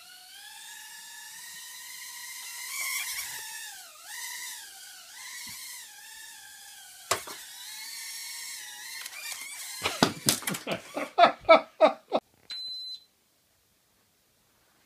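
Tiny quadcopter's propeller motors whining, the pitch wavering up and down as the throttle changes, with a sharp click about seven seconds in. Near the end come a quick run of loud pulses and a short high beep, then the sound stops.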